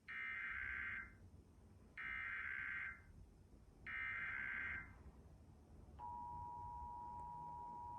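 Emergency Alert System test: three short bursts of the SAME header's data tones, two seconds apart, which encode the alert, then about six seconds in the steady two-tone attention signal starts.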